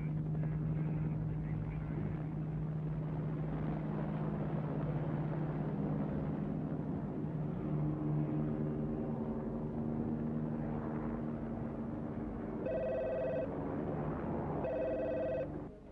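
Helicopter running steadily in flight, a continuous low engine and rotor hum. Near the end a telephone rings twice.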